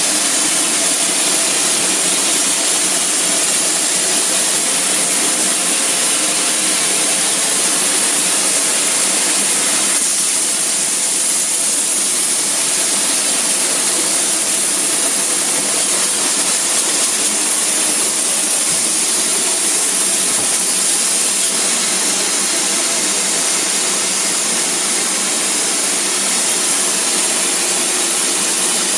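Spray polyurethane foam gun spraying insulation: a loud, steady hiss of air and foam that eases somewhat for about ten seconds in the middle.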